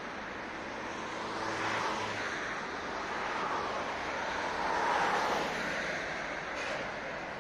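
City street traffic: a steady hum of road noise with two vehicles passing, swelling in loudness about two seconds in and again about five seconds in.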